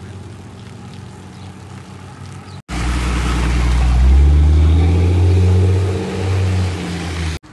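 A motor vehicle's engine running close by: first a steady low hum, then, after an abrupt cut, louder engine noise with a deep rumble that rises in pitch about four seconds in.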